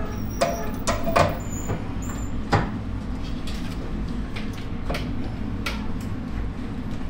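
Kitchen work in a snack bar: a few short knocks and clatters of cookware and fittings over a steady low hum of kitchen equipment.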